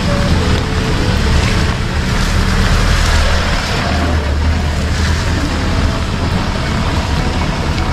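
Vehicle engine running at low speed on a rough dirt track, a steady low drone under a continuous rushing noise.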